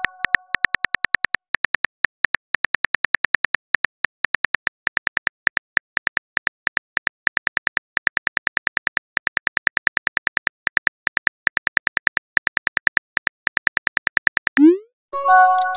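Texting-app keyboard tap sounds: a fast, even run of clicks as a message is typed out letter by letter. A chime fades out at the start, and near the end a short rising swoop and a chime sound as the message is sent.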